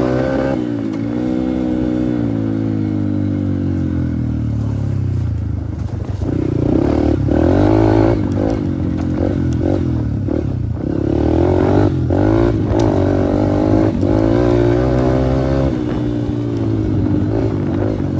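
Dirt bike engine under way, its pitch rising and falling with the throttle as the bike is ridden over rough ground, with a few short knocks.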